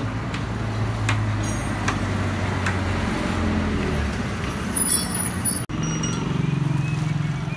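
A motor vehicle engine runs with a steady low hum, and a few light clicks sound over it in the first three seconds. The sound drops out for an instant about three-quarters through, then a hum carries on at a slightly higher pitch.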